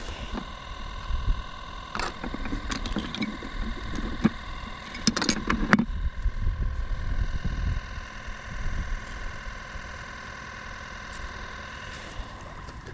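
Rustling and sharp clicks of hands working a cord stringer through a caught white bass, with a cluster of handling noises about two to six seconds in. Underneath are a low rumble and a steady hum of several high tones.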